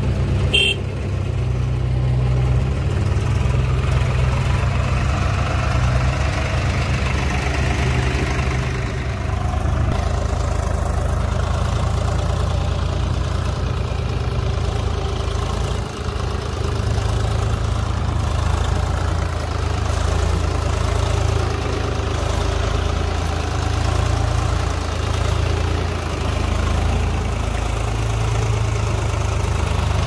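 Swaraj 735 FE tractor's three-cylinder diesel engine running steadily at low revs while it pulls a trolley loaded with soil.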